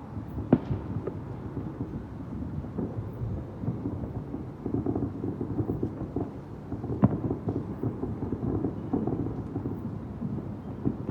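Dense barrage of distant fireworks: overlapping booms and crackles run together into a continuous low rumble. Sharper single bangs stand out about half a second in and about seven seconds in.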